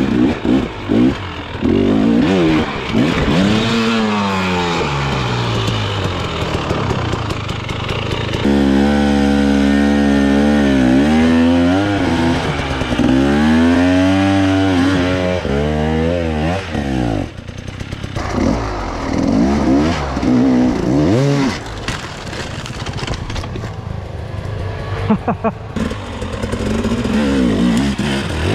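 Dirt bike engines revving hard in bursts on steep, technical enduro terrain, the pitch repeatedly rising and falling as the throttle is blipped, with one short break about two-thirds of the way through.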